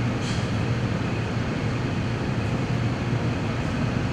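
Steady background hum and hiss with no speech, a low hum under an even hiss.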